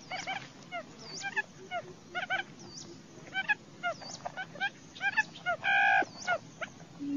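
Barred buttonquail calls: many short, quick chirping notes in irregular clusters, with one longer, louder nasal note near the end.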